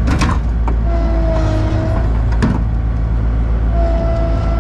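Heavy diesel machinery running with a steady low engine drone, and sharp clanks just after the start, at about two-thirds of a second and about two and a half seconds in. Twice, a whine lasting about a second falls slightly in pitch.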